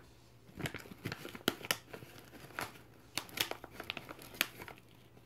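Scattered light clicks, taps and crinkles from small plastic kitchenware being handled, as a spoon scoops powdered rice cereal into a bowl of water and mixes it.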